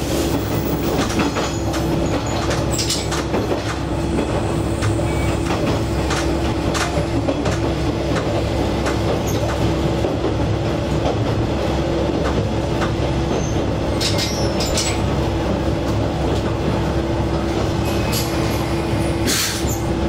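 Diesel railcar running along the track, a steady engine drone and hum over rail noise, with scattered sharp clicks and knocks from the wheels over rail joints.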